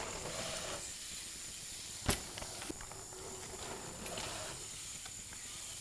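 Steady outdoor hiss on dirt BMX trails, with one sharp knock about two seconds in.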